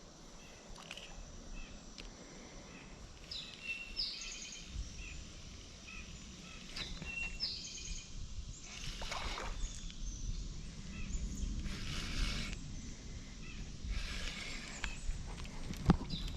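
Outdoor creek-side ambience: birds sing in short repeated phrases several times, over a low steady background. A few bursts of rustling noise about a second long come in the second half.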